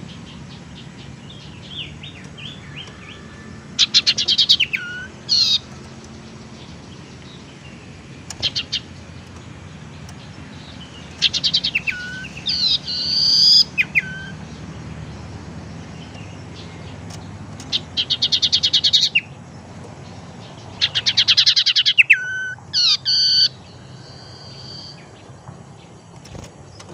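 Common iora (sirtu, cipoh) singing about six bursts of rapid high trills, each ending in a short lower note, with a few clear whistled notes mixed in, over a faint low hum.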